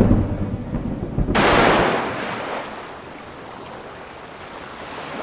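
Low rumble of thunder in a rainstorm, then, about a second and a half in, a sudden rush of wind and surf noise that settles into the steady wash of small waves on a sandy beach.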